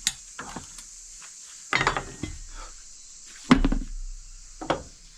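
Four separate knocks and clunks of mower wheels and tools being handled, the loudest a heavy thud about three and a half seconds in.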